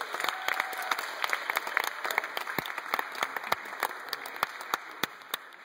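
A small group of people applauding by hand clapping, the claps thinning out and fading toward the end.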